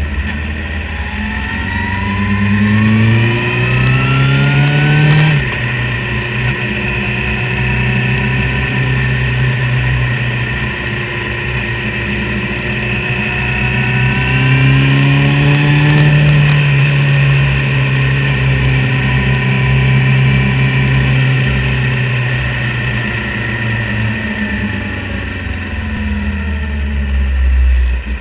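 Suzuki GSX-R750 sportbike's inline-four engine under way. It revs up for about five seconds, its pitch dropping suddenly at a gear change. It climbs again about halfway through, holds, and eases off near the end, over a constant low wind rumble on the microphone.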